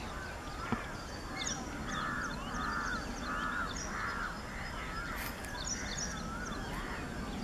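Several birds calling over each other in a continuous chorus: arched calls repeating about twice a second, with thin high chirps mixed in, over a steady low background noise.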